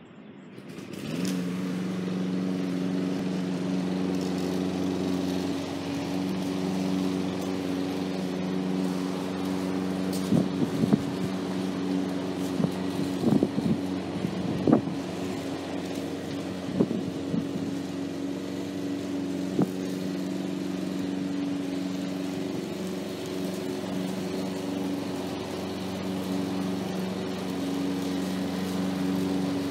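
Walk-behind petrol push mower's small engine running steadily at a constant pitch while cutting grass, coming in about a second in, with a cluster of sharp knocks and cracks near the middle.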